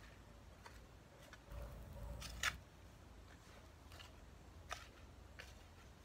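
A garden hoe chopping into and scraping soil: a series of short, sharp strikes, roughly one every half-second to second, the loudest about two and a half seconds in.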